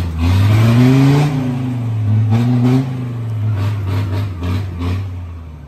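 Off-road Jeep's engine revving under load on a rough trail: the revs rise for about the first second, then hold steady and fade toward the end, with scattered knocks over the engine.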